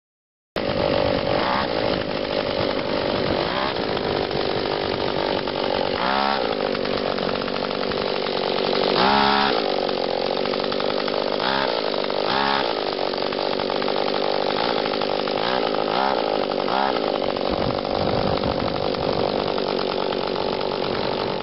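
Two-stroke chainsaw engine on a homemade motorized bicycle, running steadily with its revs rising and falling briefly several times. It starts suddenly about half a second in.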